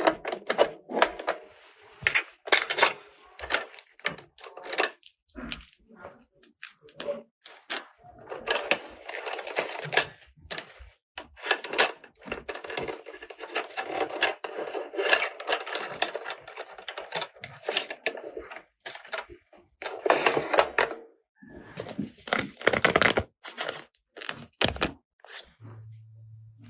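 Hard plastic toy kitchen parts and accessories being handled: many quick clicks and taps, with longer stretches of rustling in the middle and again near the end.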